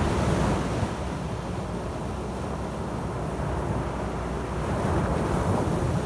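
Small waves breaking on a sandy beach close by and washing up the shore: a louder crash of surf near the start and another near the end, with a steady wash between.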